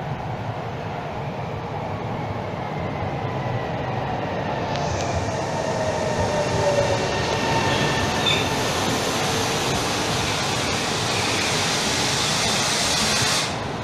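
A Coradia Meridian ETR 245 electric train running into an underground station. Its steady rumbling hiss grows louder as it nears, with a falling whine a few seconds in.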